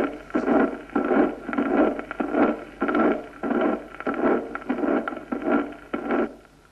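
Recorded heart sounds heard through a stethoscope: the early systolic (protosystolic) murmur of mitral regurgitation, typical of acute mitral insufficiency from papillary muscle dysfunction in a myocardial infarction. The murmur repeats with each heartbeat, about one and a half to two beats a second, and stops about six seconds in.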